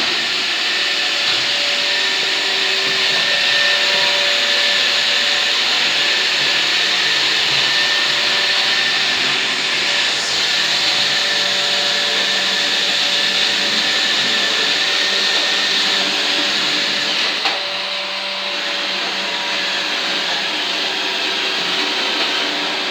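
Roomba robot vacuum running with a steady whir of its suction motor and brushes, with one sharp click or knock about three quarters of the way through.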